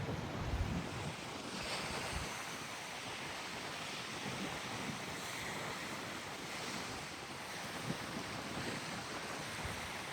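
Wind blowing across the microphone: a steady rushing noise with low buffeting gusts in the first second.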